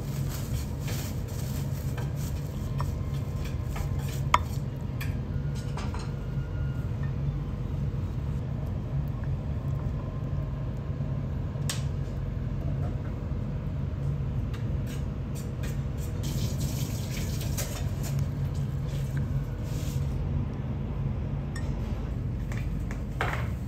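A metal spoon scooping and scraping in a cut-glass dessert bowl, with scattered light clinks, the sharpest about four seconds in and again near twelve seconds, over a steady low restaurant hum.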